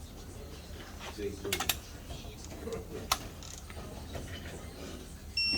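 Metal tools and engine-case parts clicking and clinking in hand as Harley-Davidson crankcase halves are fitted together. Near the end comes a single short, high electronic beep.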